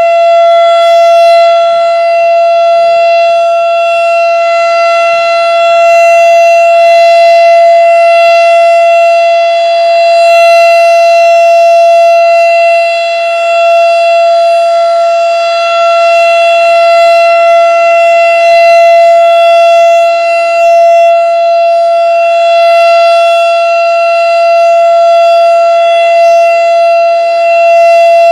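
Darley STH-10 outdoor warning siren sounding a steady full-alert tone: one loud, unwavering pitch with small swells in loudness, part of a 3-minute test sounding.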